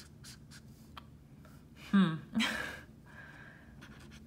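A couple of quick alcohol-marker strokes scratching on paper at the start, then about two seconds in a short vocal sound falling in pitch, followed by a breathy exhale: a doubtful sigh.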